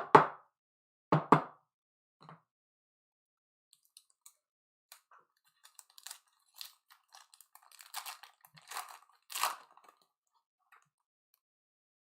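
Sports trading cards and a card pack being handled: two loud knocks at the start, then scattered crisp crinkling and clicking, thickest in the second half as the pack wrapper is torn open and the cards are shuffled.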